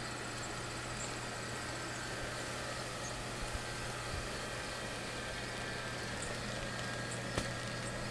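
Electric blower fan of an inflatable lawn decoration running with a steady hum and hiss, with one sharp click about seven seconds in.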